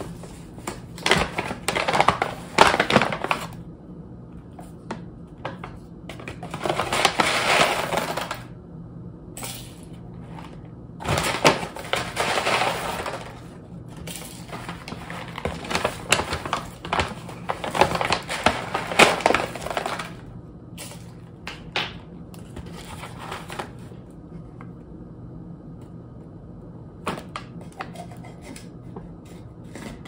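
Kraft-paper coffee bag crinkling and rustling as it is handled, opened and folded shut, in about five bursts of a few seconds each with quieter gaps between.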